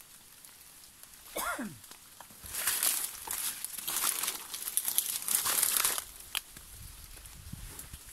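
Dry leaves, palm fronds and undergrowth rustling and crackling in repeated bursts as someone pushes and steps through brush. There is a short, falling voice-like call about a second and a half in.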